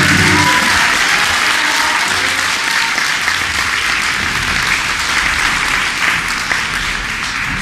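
Audience applauding, a dense sustained clapping that eases off slowly. Music dies away right at the start.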